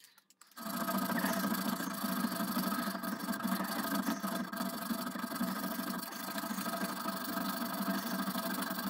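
A thin metal file rasping back and forth across a steel rifle barrel, cutting a dovetail notch for a front sight. It starts suddenly about half a second in and keeps going steadily, with a faint ringing of the clamped barrel in it.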